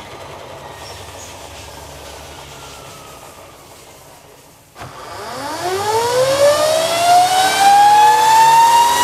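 Electric motorcycle's motor and drivetrain driving a chassis dyno roller in a full-throttle pull: a knock about halfway through, then a loud whine that rises fast in pitch and levels off near the end as the bike nears top speed in mode 4. A faint falling whine runs before the knock.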